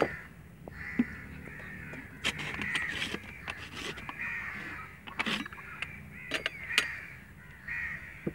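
Crows cawing repeatedly, with scattered sharp clicks and knocks among the calls.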